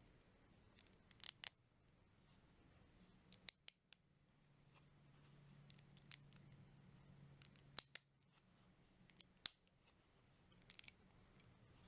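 Lego bricks being handled and pressed together: a series of sharp plastic clicks, often in pairs, every second or two.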